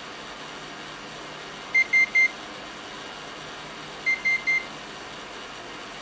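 Rohde & Schwarz CMU200 tester booting, with the steady noise of its cooling fans and two sets of three short high beeps, about two seconds apart.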